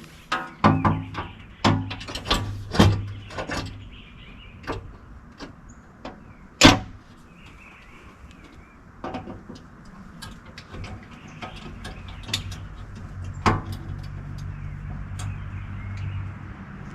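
Scattered sharp clicks and knocks of tools and hardware on the door as screws are fitted to hang an aluminum door on a Honda Talon, with one louder knock a little past the middle. A low steady hum sounds near the start and again toward the end.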